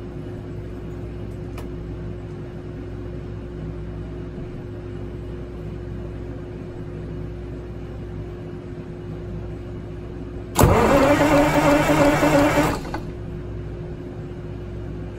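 Detroit Diesel 6-71 inline two-stroke diesel turned over by its starter motor for about two seconds, starting suddenly about ten seconds in. The fuel rack is held in the off position, so the engine cranks without firing: a starter check. A steady low hum runs under it.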